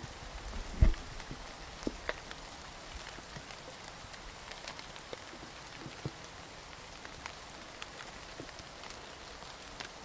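Steady rain falling in a garden: an even hiss with scattered individual drops ticking. One loud, dull thump comes about a second in.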